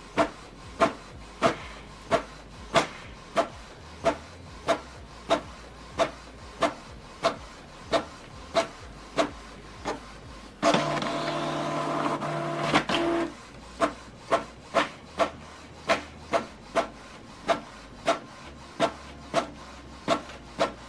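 Canon PIXMA TS7650i inkjet printer printing a double-sided colour copy: the print-head carriage sweeps back and forth with a sharp click at the end of each pass, about three every two seconds. About eleven seconds in, a louder steady motor whir with a hum runs for about two and a half seconds as the paper is moved through, then the clicking passes resume.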